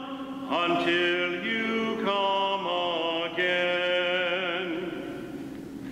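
Sung memorial acclamation at Mass, its closing phrase: voices chanting slow, held notes with vibrato, at times in two parts, dying away near the end.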